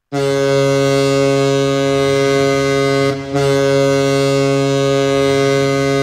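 Ice hockey arena goal horn blasting to signal a goal: a loud, deep, steady horn that starts suddenly, breaks briefly about three seconds in, then sounds again.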